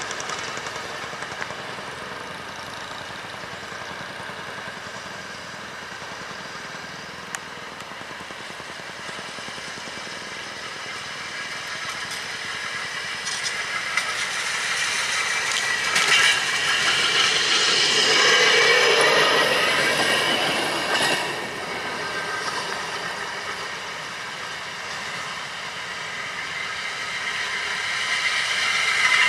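Rail speeders (small track motorcars) running along the rails, their engines a steady drone. The drone grows louder as one passes about halfway through, falls away, then builds again as the next one approaches near the end.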